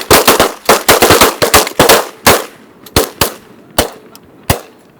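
A volley of shotgun fire from several hunters shooting at once: a rapid barrage of overlapping blasts for the first two seconds or so, then a few spaced single shots, the last about four and a half seconds in.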